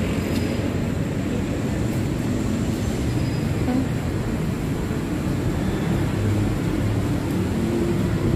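Steady low rumble of city background noise, with no single event standing out.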